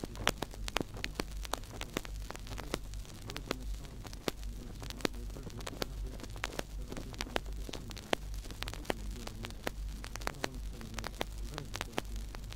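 Surface noise of a 1952 home-recorded EMIdisc played at 78 rpm: dense, irregular crackle and clicks over a steady low hum.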